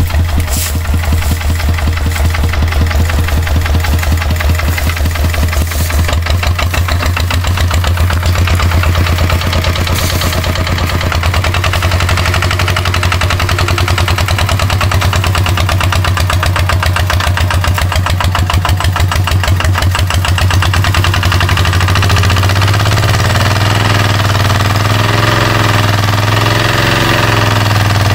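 Kubota two-wheel walking tractor's single-cylinder diesel engine running under load, hauling a loaded trailer, with rapid, even firing beats. About three-quarters of the way through, the engine speeds up a little.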